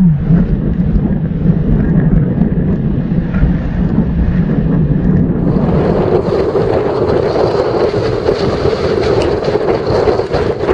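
Strong wind buffeting the microphone over rushing, breaking sea water and spray. About five and a half seconds in, the noise turns harsher and hissier.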